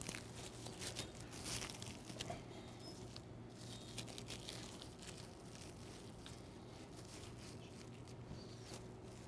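Faint crinkling and rustling of plastic cling wrap as a chicken roulade is rolled tight and the wrap's ends are twisted, over a low steady hum.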